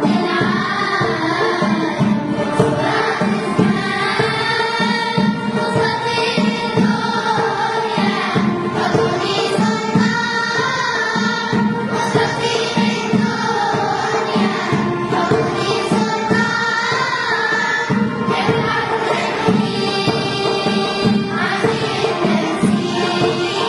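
A choir singing a Tunisian Arabic song in unison, over instrumental backing with a steady percussion beat.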